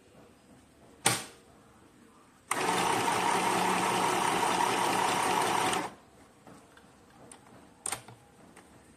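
FHSM 505A portable mini electric sewing machine running steadily for about three and a half seconds as it stitches fabric, starting and stopping abruptly. A sharp click comes a second or so before it starts, and another about two seconds after it stops.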